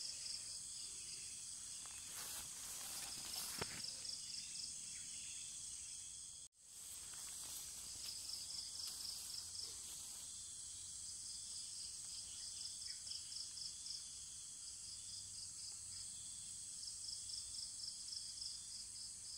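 Insects calling steadily: a continuous high-pitched buzz with repeated runs of rapid pulsing chirps laid over it. A few faint clicks sound in the first few seconds, and the sound cuts out for an instant about a third of the way through.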